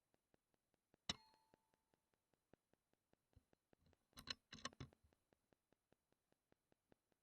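Air rifle firing: a single sharp metallic click with a brief ring about a second in, then a quick run of mechanical clicks and clatter around four seconds in, typical of the action being cycled. Faint even ticking, about five a second, runs underneath.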